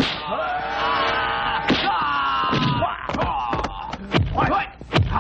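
Martial arts film fight sounds: a long fighter's yell, then shorter shouts mixed with about half a dozen sharp punch and kick impact effects.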